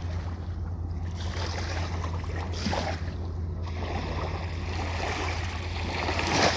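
Ocean waves washing in over a steady low rumble, with the loudest wash near the end.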